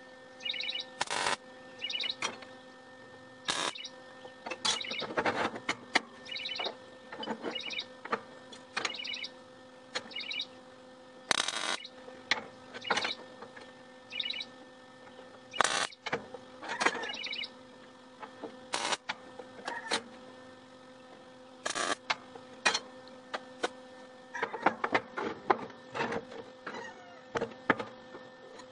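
Short pieces of square steel bar, a metal speed square and welding magnets being set down, slid and knocked together on a steel welding table: irregular clinks and clanks of steel on steel over a steady low hum.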